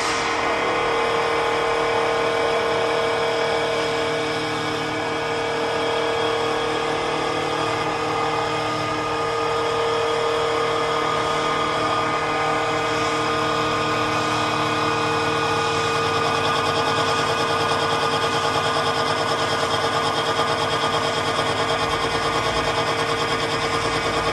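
CNC wood turning lathe running, a steady machine whine made of several held tones over a constant noisy hiss.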